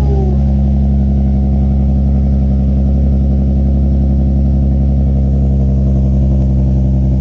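Infiniti G35 coupe's 3.5-litre V6 idling steadily through an aftermarket exhaust of test pipes (catalytic converters deleted) and a Y-pipe into a single exhaust, with the silencer insert removed. The note holds even and loud, with no revving.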